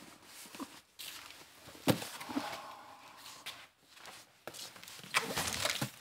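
A cardboard parcel being carried and opened: footsteps, a sharp knock about two seconds in, and a burst of rustling cardboard and tape near the end.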